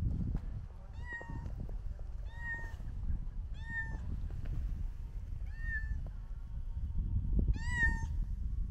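A cat meowing repeatedly: five short meows, each rising then falling in pitch, a second or two apart.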